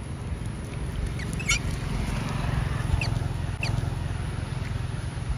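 Wind rumbling on the microphone, with a few short high squeaks from a small animal, the clearest about a second and a half in.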